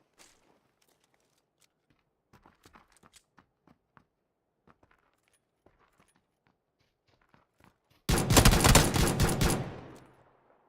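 Faint scattered taps and clicks, then about eight seconds in a loud rapid burst of gunfire, many shots in about a second and a half, with an echo dying away after it.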